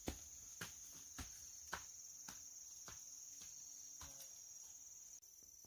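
Footsteps on a dirt path, about two steps a second, growing fainter as the walker moves away, over a steady high-pitched drone of insects such as crickets.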